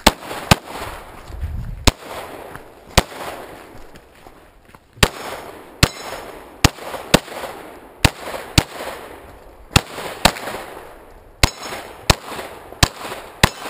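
A string of semi-automatic pistol shots, about sixteen, fired mostly in quick pairs about half a second apart, each shot trailing off in a short echo.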